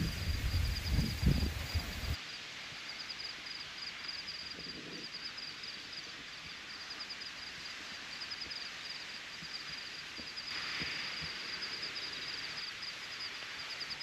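Wind rumbling on the microphone, which stops abruptly about two seconds in and gives way to quiet outdoor ambience. A high, rapid chirping runs steadily throughout.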